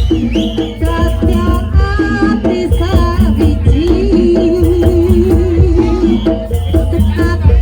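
Loud bantengan folk music with a heavy drum beat and percussion under a wavering, held melody line.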